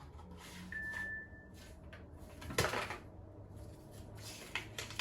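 Drone box contents and packaging being handled: scattered light rustles and clicks, with a louder scrape or rustle a little past halfway. A short, thin, steady high tone sounds about a second in.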